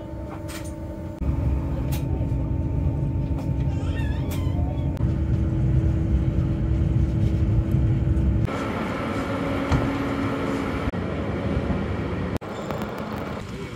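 Railway train noise in short clips that change abruptly: a steady low rumble with a held humming tone, as from a train running, broken by sudden cuts about a second in, partway through and near the end.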